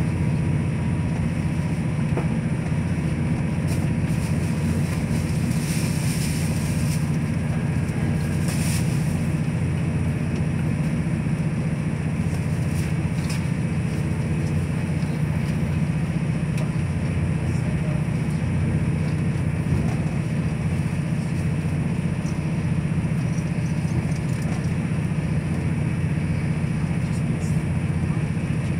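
Steady low rumble and hum of a moving CrossCountry diesel passenger train, heard from inside the carriage. A few brief higher-pitched noises come through about six and nine seconds in.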